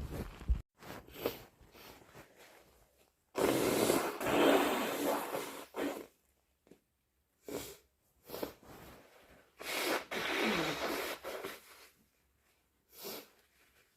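A person sneezing twice, induced hayfever sneezes, each a loud blast about two seconds long and about six seconds apart, with short sharp breaths or sniffs in between.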